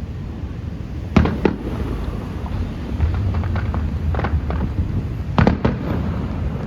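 Fireworks going off: sharp bangs about a second in and again a cluster near the end, with smaller crackles between, over a steady low rumble.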